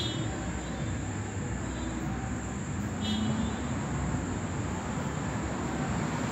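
Steady low rumbling background noise, with two faint high chirps, one at the start and one about three seconds in.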